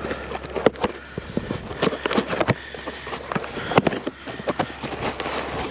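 Irregular knocks, clicks and clatter from scrap being handled and moved about, mixed with footsteps, over a low steady hum.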